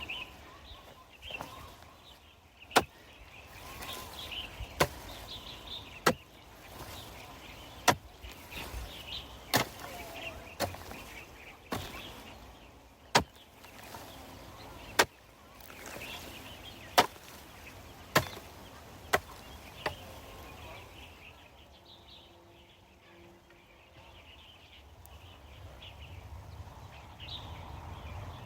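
A hand hoe chopping into the soil, about a dozen sharp strikes one to two seconds apart, stopping about twenty seconds in.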